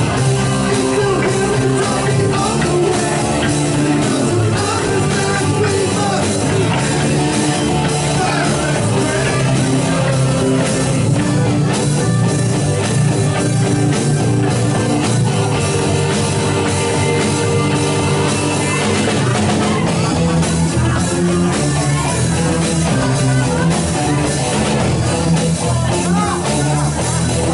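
Live rock band playing, with drum kit, electric guitar, bass and keyboards at a steady loud level.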